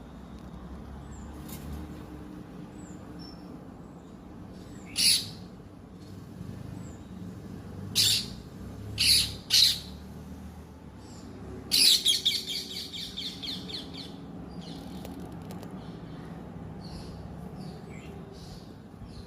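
Pet parrot calling: four short, sharp calls spread over the first ten seconds, then a quick run of chirps about twelve seconds in, with faint high chirps in between.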